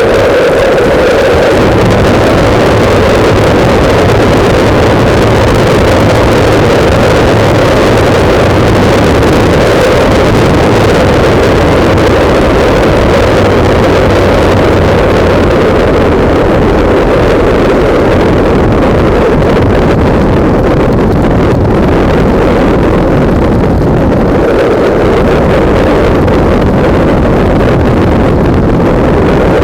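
Loud, steady wind noise buffeting the microphone of a camera mounted on a moving motorcycle, with the motorcycle's engine running faintly underneath.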